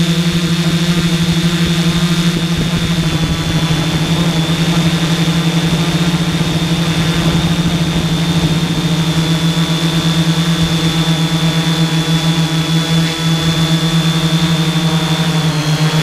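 Hexacopter drone's electric motors and propellers running steadily in flight, heard from the camera mounted on the drone: a loud buzzing hum with a thin high whine above it. The pitch dips briefly near the end.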